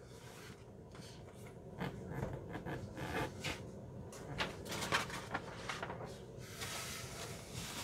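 Faint handling noise: scattered light clicks and knocks, with a brief rustle near the end.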